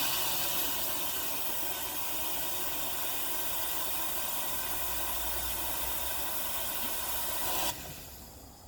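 Steady hiss of compressed air from an air compressor's hose blowing out a sprinkler line. It drops away sharply near the end.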